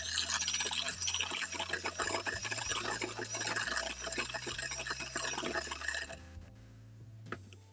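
Electric hand mixer beating thick cake batter in a metal bowl: a low motor hum under wet churning and rapid clicking of the beaters. The mixer stops about six seconds in.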